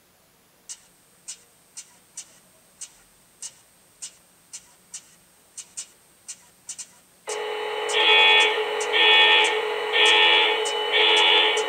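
Sound decoder of an MTH HO-scale SD70ACe model locomotive playing its extended engine start-up sequence through the model's speaker. First comes a run of sharp clicks at uneven spacing. From about seven seconds in there is a steady electrical hum, with a beep-like tone pulsing about once a second.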